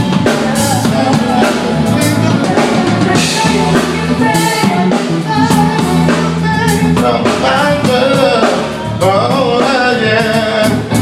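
R&B/hip-hop song playing, with a singing voice over a steady drum-kit beat.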